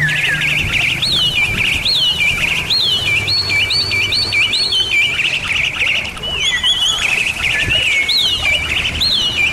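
Bali myna singing: a continuous run of clear, slurred whistles, each gliding down in pitch, repeated about twice a second.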